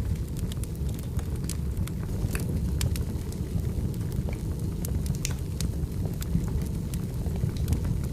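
Firewood burning with a steady low rumble, crackling and popping in irregular sharp snaps several times a second.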